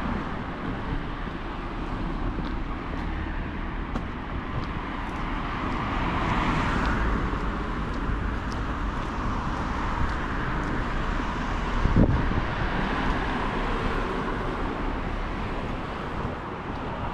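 City street traffic noise, with a vehicle passing about six seconds in and a short dull thump about twelve seconds in.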